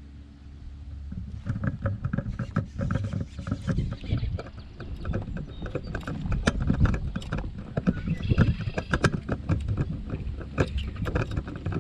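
A fishing reel being cranked to bring in a hooked fish, a fast, irregular clatter of clicks that starts about a second in, with water noise around an inflatable paddleboard.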